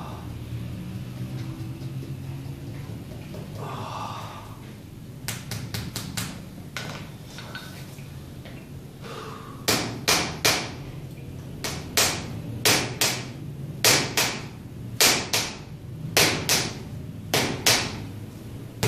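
Sharp knocks of a hand-held massage tool struck against the heel as percussion treatment for a heel spur: a few light taps at first, then from about halfway in a run of louder knocks, often in quick pairs, about one to two a second.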